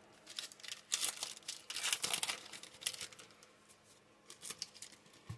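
Booster pack wrapper crinkling and trading cards being handled, a quick run of short rustles in the first few seconds that thins out to a few faint ones.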